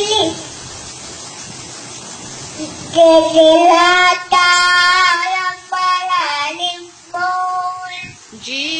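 A child singing a devotional kirtan chant in short, repeated phrases, with no instruments to be heard. The singing comes in about three seconds in, after a steady hiss.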